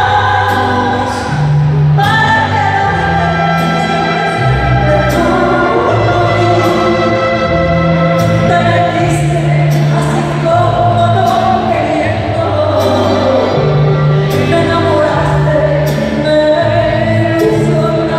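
Live regional Mexican band music with singing over it: a moving bass line, sung melody and regular drum and cymbal hits.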